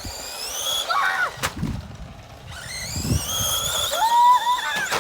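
Small electric RC car motor whining, its pitch rising as it speeds up, twice, with a sharp knock about a second and a half in.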